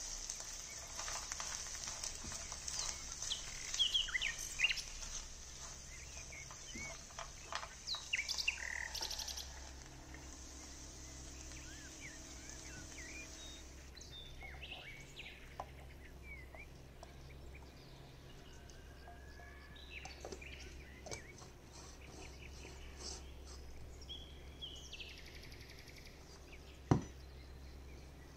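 Small birds chirping in short, repeated calls, over a steady high hiss that stops about halfway through. A single sharp knock comes near the end.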